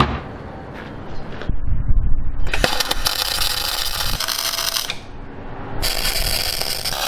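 MIG welder arc crackling and spitting in two welds a couple of seconds each, with a short break between them, as a steel bulwark post is tacked to a steel boat hull.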